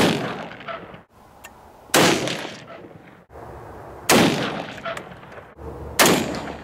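Four rifle shots from a .22-250, about two seconds apart, each trailing off over about a second, fired while sighting in a scope at 100 yards.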